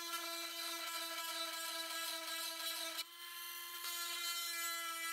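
Princess Auto 12-volt electric chain sharpener running, its small grinding stone grinding the cutters of an Oregon PowerCut chainsaw chain to a 10-degree ripping angle. The motor gives a steady whine under the rasp of stone on steel, which dips briefly about three seconds in and then resumes.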